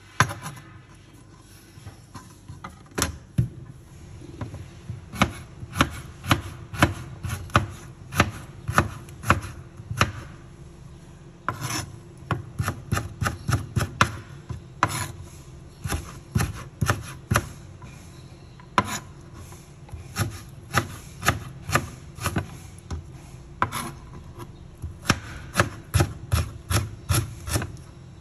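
Irregular runs of sharp taps or knocks, a few a second, broken by short pauses.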